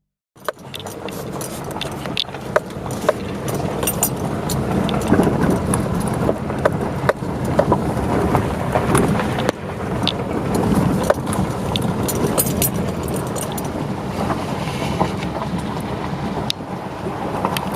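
Subaru Crosstrek driving on a dirt road: a steady rumble of tyres on gravel, peppered with frequent sharp clicks of small stones. It starts abruptly about half a second in.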